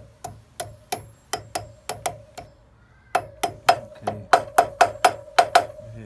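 Hammer tapping a wheel bearing into a worn motorcycle hub, with a thin shim cut from a can packing the loose bore. Sharp metallic taps, each with a brief ring, come about three a second. After a short pause a little under halfway, a quicker, louder run of taps follows as the bearing is driven home.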